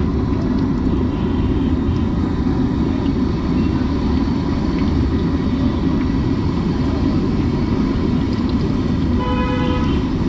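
Steady low rumble of a busy city street, with a short vehicle horn beep about nine seconds in.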